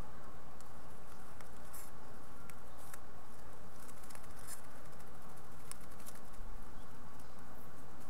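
Faint scattered ticks and rustles of mourning dove fledglings shifting and preening in their twig-and-pine-needle nest, over a steady low background rumble.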